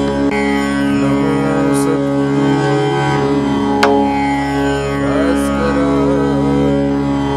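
Marathi kirtan devotional singing: a male singer draws out a wordless, ornamented melodic line over a steady held drone accompaniment. There is one sharp click about four seconds in.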